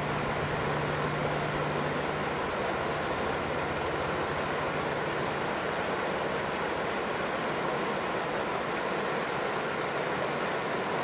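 Steady rushing of a shallow stream, with a low hum under it that fades out about two seconds in.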